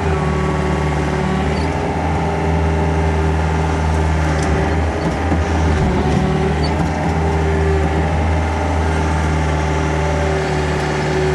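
The engine of a heavy earthmoving machine runs steadily at a constant pitch while the machine pushes against a tree.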